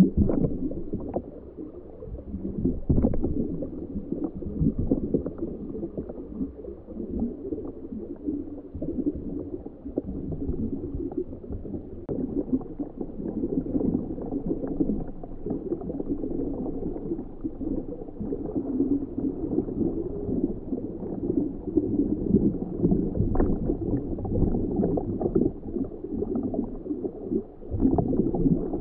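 Muffled underwater gurgling with a low rumble and scattered knocks, picked up by the homebuilt ROV's onboard camera inside its waterproof housing.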